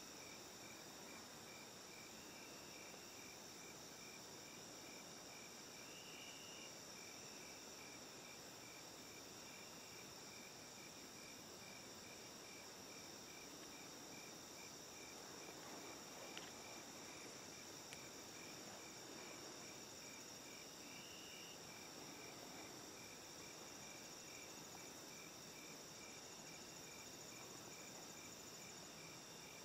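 Faint late-summer insect chorus in a field: a steady high-pitched trill under an even chirping pulse of about two to three chirps a second, with a single faint click about halfway through.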